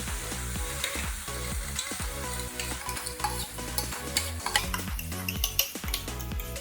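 Egg, vegetable and flour batter sizzling in a little oil in a frying pan, with scattered clicks and scrapes of a utensil in the pan. Background music with a steady beat plays underneath.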